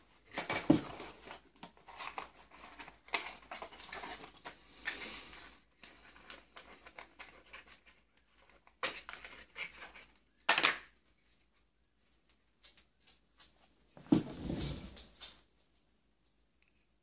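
Small cardboard and plastic packaging being handled during an unboxing: a box sliding out of its sleeve, a lid opened and contents lifted out, with scattered rustles, taps and a sharp click, and quiet gaps between them.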